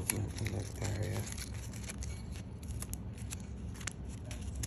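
Blue painter's tape being peeled and unwrapped from a bundle of wires, a run of small crackles and ticks.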